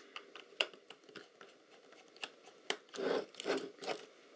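Small screwdriver working the front-plate screws of a Lomo LC-A camera: light metallic clicks and ticks of the blade in the screw heads, with two brief louder scuffs of handling about three seconds in.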